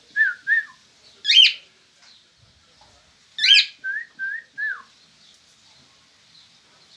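Pet birds calling: two short whistled notes, a loud harsh screech about a second in, another screech at about three and a half seconds followed by three more short whistled notes.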